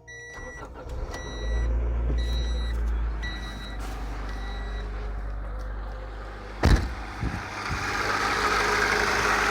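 Acura Integra's B18B1 four-cylinder engine running loud and rough, which the owner takes for a blown head gasket with a rod knock; a car's warning chime beeps repeatedly over the first few seconds. A sharp thump comes about seven seconds in.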